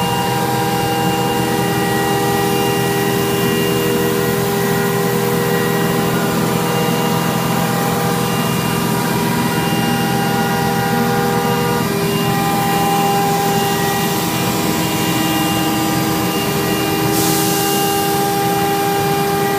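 AXYZ 6010 CNC router's spindle running steadily with a many-toned whine as a V-groove bit cuts Dibond aluminium composite panel. A brief hiss joins it near the end.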